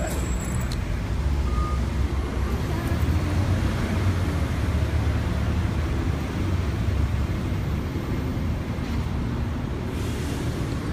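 Steady city traffic rumble, a dense low noise of passing cars with no distinct events standing out.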